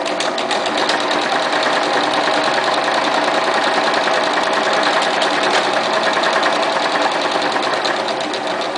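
Janome 4618 domestic sewing machine running steadily with rapid needle strokes as it stitches an automatic buttonhole with the R buttonhole foot.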